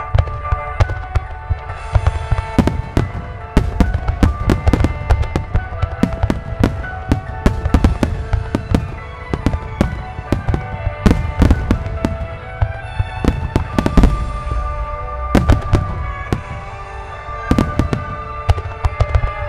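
Aerial firework shells bursting in quick, irregular succession, with sharp reports and crackling, most densely through the middle, over music with long held notes from the show's loudspeakers.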